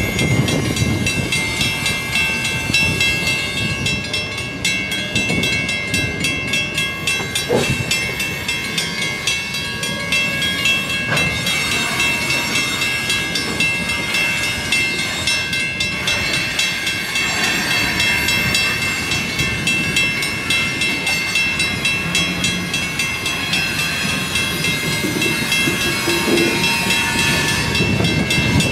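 Covered hopper cars of a potash freight train rolling past, their wheels clattering on the rails, over a steady high ringing.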